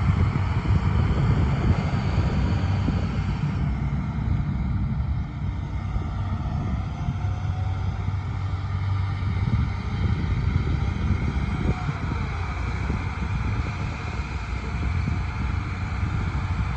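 Liebherr R946 long-reach crawler excavator's diesel engine running with a steady low hum, its upper hiss easing slightly about four seconds in.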